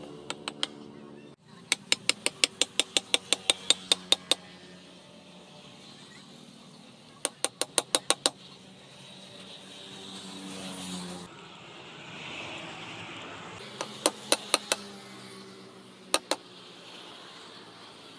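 Sharp metallic taps in quick runs of about five a second, as the wooden handle of a forged spring-steel cleaver is knocked down onto its tang against a steel post. The longest run, about fourteen taps, comes a couple of seconds in; shorter runs follow at intervals.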